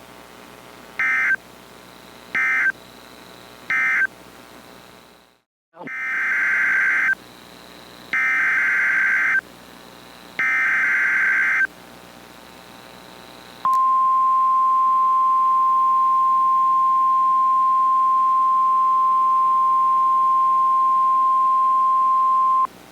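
Emergency Alert System data tones on NOAA Weather Radio. First come three short buzzy SAME bursts, the end-of-message code closing the previous warning. After a brief dropout come three longer SAME header bursts announcing the next alert, and then the steady single-pitch 1050 Hz weather radio warning alarm tone holds for about nine seconds.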